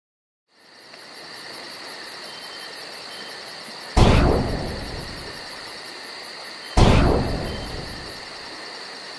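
Intro sound effects: a steady bed of cricket-like chirring that fades in, with two deep boom hits, one about four seconds in and one near seven seconds, each dying away over a second or two.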